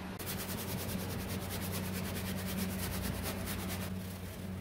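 Brush scrubbing a car's plastic wheel-arch liner, quick regular strokes several a second that stop about four seconds in, over a steady low hum.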